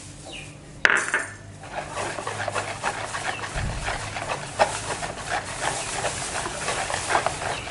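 Metal wire whisk beating eggs and melted margarine into a runny batter in a plastic bowl: a sharp knock about a second in, then fast, continuous clicking and scraping of the wires against the bowl with the sloshing of the batter.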